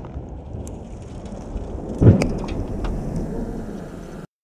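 Aftermath of a dynamite and detonating-cord blast in a car: a low rumble with scattered small impacts of falling debris, and a second sharp bang about two seconds in. The sound cuts off shortly before the end.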